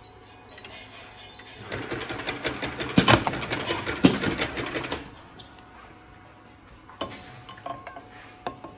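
Round-bottle clamp labeling machine running a bottle through a labeling cycle: a rapid mechanical clatter for about three seconds, with two sharp knocks in the middle, then a few isolated clicks near the end.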